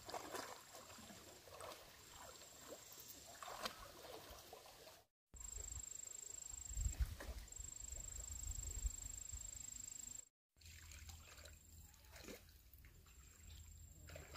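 Faint water sounds: trickling and light splashing, with a steady high-pitched whine over them. The sound drops out completely twice, for a moment each time.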